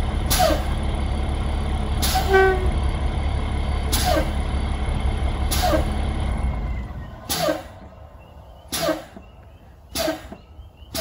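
7.6-litre DT466E diesel engine of a 2003 IC CE300 school bus idling, then shutting off about seven seconds in. Over it, short sharp hisses, each with a falling squeal, recur every couple of seconds and come closer together once the engine has stopped.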